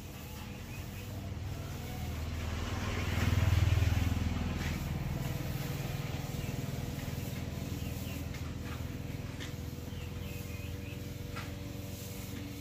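An engine running, its low rumble swelling to its loudest about three and a half seconds in and then holding steady.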